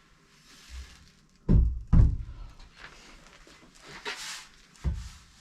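A few dull thumps and knocks with a brief scrape between them, from handling the freshly cut steel and the chop saw after the cut; the saw motor is no longer running.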